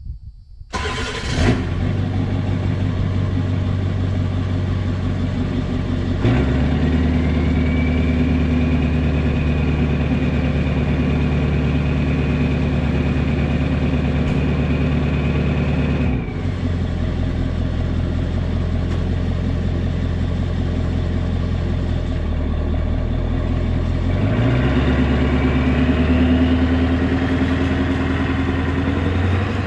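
1996 Ford F350's 7.3 Powerstroke V8 turbo diesel, through a 3-inch straight-pipe exhaust, starting about a second in and settling to idle. About six seconds in it steps up to a higher held speed with a high whistle that rises with it, falls back to idle about ten seconds later, then revs up again as the truck pulls away.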